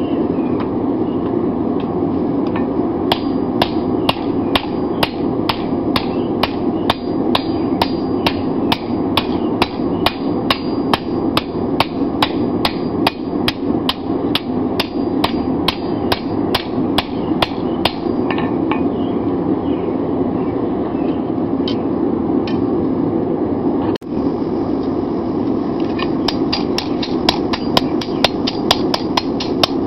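Cross-peen hammer striking red-hot 5160 steel on an anvil, rolling the socket of a seax blade. The blows come evenly at about three a second, thin out past the middle, then pick up faster near the end, all over a steady rushing noise.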